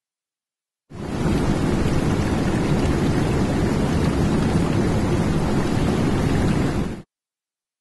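Steady, dense rushing noise, heaviest in the low range, fading in about a second in and cutting off abruptly about seven seconds in, with dead silence on either side.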